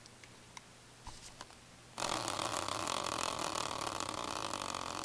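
Hand-spun prize wheel with NHL team logos spinning, setting off a fast run of ticking about two seconds in that begins to slow slightly near the end.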